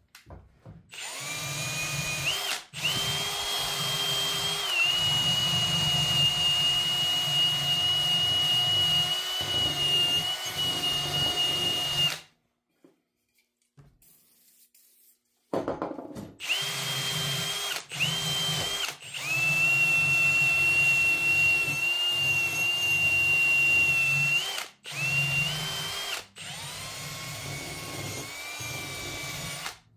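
Cordless drill spinning a wire cup brush against a rusty steel axe head, a steady motor whine over the grind of the wire bristles, with its battery running low. It runs in long bursts with a few brief stops and restarts, and falls silent for about three seconds near the middle before starting again.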